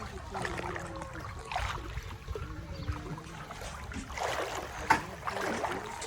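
Pond water splashing and sloshing in repeated gushes, the sharpest splash about five seconds in, over a low engine rumble.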